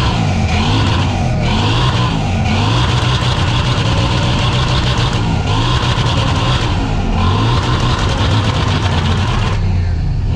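A stationary car's engine is revved hard over and over, its pitch sweeping up and down, with a harsh crackling rasp from the exhaust that comes and goes in long stretches.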